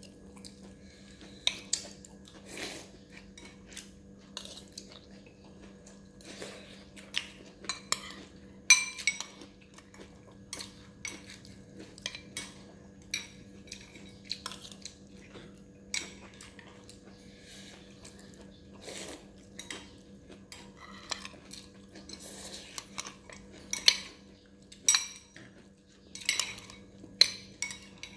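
Metal spoon stirring fried short noodles in a bowl, clinking and scraping against the bowl in irregular clicks. A faint steady hum runs underneath.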